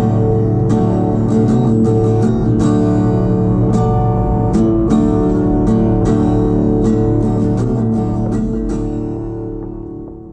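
Background music led by strummed acoustic guitar, fading out over the last two seconds.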